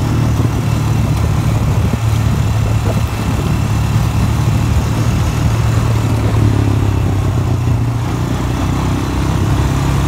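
ATV (four-wheeler) engine running at a steady pace while riding along.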